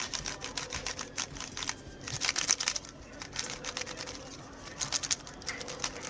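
GAN 356 Air M magnetic speed cube being turned rapidly by hand: quick runs of plastic clicks and rattles as the layers turn, busiest about two seconds in and again near the five-second mark. The cube is being test-turned after its corner magnets were pressed in to cure a catching noise.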